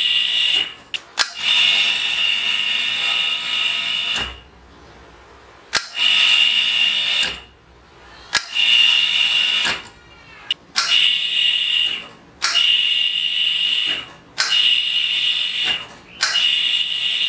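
Homemade electric hoist's 1/2 hp motor and drum running in about eight short bursts of one to three seconds as it jogs a hanging water bottle up on its cable, each burst a loud high-pitched whine that starts with a sharp click and stops abruptly.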